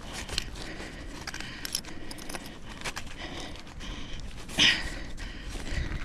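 Irregular metallic clinks and knocks of ice-climbing gear, with one louder sharp knock about four and a half seconds in.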